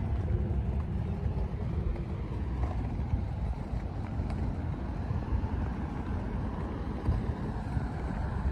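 Outdoor roadside ambience: a steady low rumble of car traffic on the road, mixed with wind buffeting the microphone.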